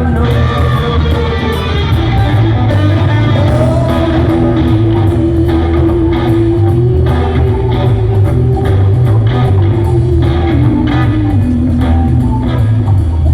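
Rock band playing live and loud: electric guitar and bass over drums, with one long note held for several seconds through the middle.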